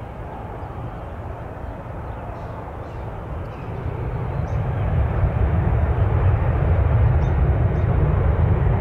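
Aircraft engine rumble, growing louder from about four seconds in and then holding steady.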